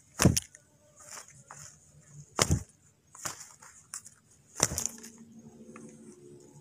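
Three loud thumps, a little over two seconds apart, with fainter clicks and rustles between them.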